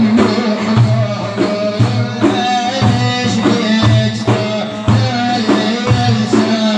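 Instrumental passage of an Iraqi madih song: a melody line over a steady drum beat, with a strong low drum stroke about once a second.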